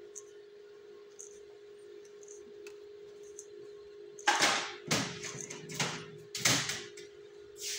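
A faint steady hum, then, in the second half, five or six short, loud bursts of rustling and scraping handling noise.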